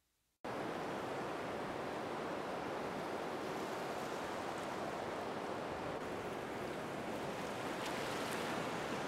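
Steady sound of ocean surf, cutting in suddenly about half a second in.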